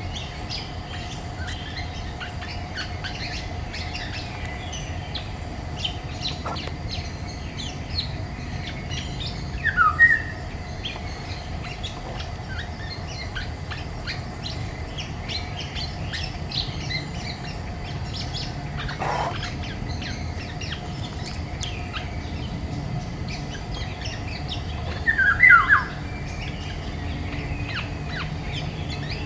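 Woodland birds calling: many faint, short small-bird chirps throughout, with two loud, brief falling calls, one about ten seconds in and one about twenty-five seconds in.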